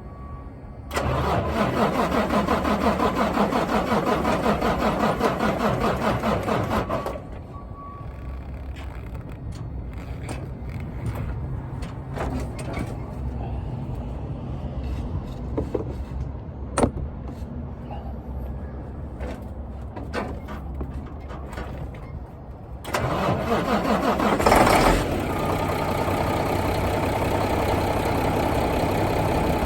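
Mack CH613 diesel truck engine cranking on the starter for about six seconds without catching, then cranking again about sixteen seconds later and firing within a couple of seconds, settling into a steady idle.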